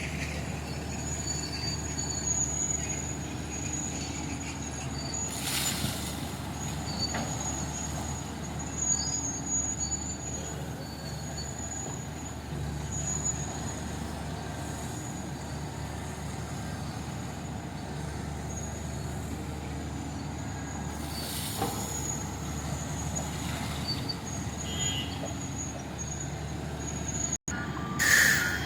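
Heavy diesel engines of an excavator and dump truck running steadily. Three short hisses break in, about a fifth of the way in, about three-quarters through and at the very end.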